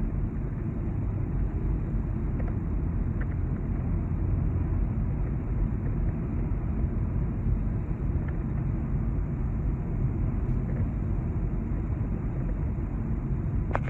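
Steady low rumble of road and tyre noise inside a car's cabin while it cruises on the interstate.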